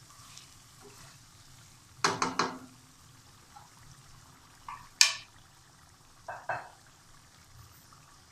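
Spoon knocking and scraping against a metal cooking pot as marinated chicken is stirred in hot oil, over a faint sizzle. A quick cluster of three clinks comes about two seconds in, a sharp clang about five seconds in, and two lighter knocks soon after.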